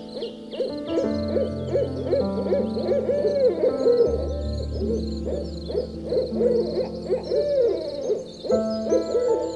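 A run of short arching hoot-like calls, a few a second, over sustained low notes of background music, with faint high chirps above.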